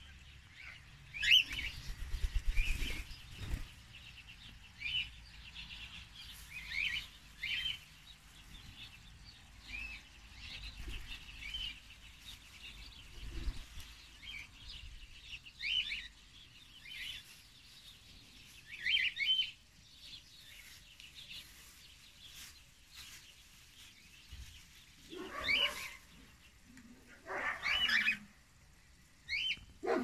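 Cockatiels chirping: short high chirps every second or two. Near the end come two louder, lower-reaching calls about two seconds apart.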